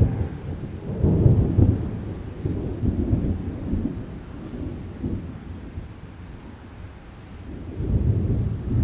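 Thunderstorm: a long rolling peal of thunder with rain hissing underneath. The rumble is loudest in its first two seconds, rolls on and dies away, then a second rumble builds near the end.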